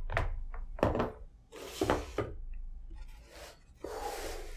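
Handling noises from unboxing: a few sharp knocks and thunks as items are set down or bumped, with rubbing and rustling of the packaging between them.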